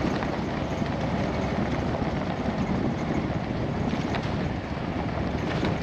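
Steady wind buffeting an exterior-mounted camera microphone over the rumble of a 1979 Chevy K10's tyres rolling on a gravel road.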